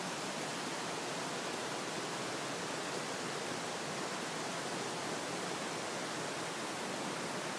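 Floodwater rushing steadily over a low stone wall and across a gravel path: a constant, even rush of water with no breaks.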